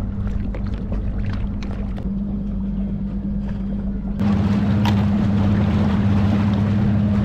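Boat's outboard motor running at a steady cruise, a constant low hum. About four seconds in it gets louder, with a rush of wind and water added.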